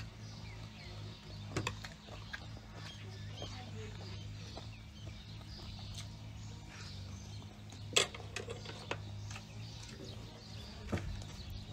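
Eating sounds: chewing with a few sharp clicks of chopsticks, the loudest about eight seconds in, over a steady low hum.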